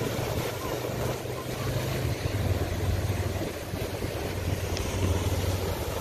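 Ocean surf breaking and washing over a dark rock shelf: a steady rush of water with a low rumble, swelling slightly a couple of times, with wind on the microphone.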